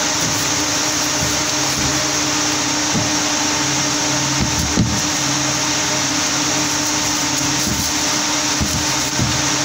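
Steady drone of textile mill machinery with a constant hum and a strong hiss. A few brief knocks from cones and bags being handled cut through about halfway and near the end.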